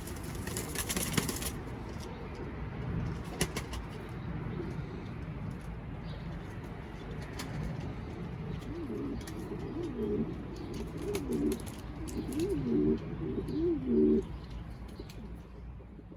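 Pouter pigeons cooing: a run of about half a dozen wavering coos that rise and fall in pitch, starting a little past halfway and loudest near the end, over a low steady rumble with a few faint clicks.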